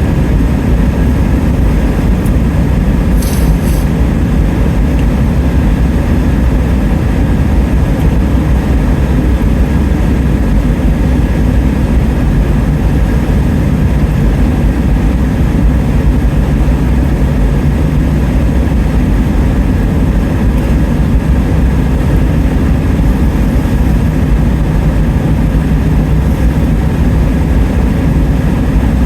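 Steady low rumble of a running vehicle, even in level throughout, with a brief high hiss about three seconds in.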